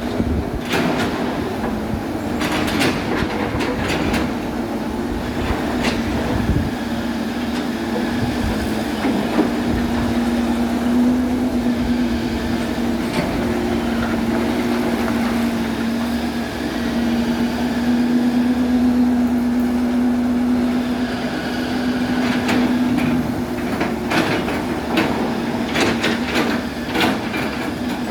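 Excavator engine running steadily with a constant hum, with scattered metallic clanks and knocks, most of them near the start and in the last few seconds.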